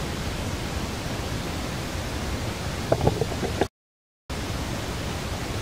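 Steady hiss of outdoor background noise, with a brief cluster of short, sharp sounds about three seconds in, then half a second of dead silence before the hiss resumes.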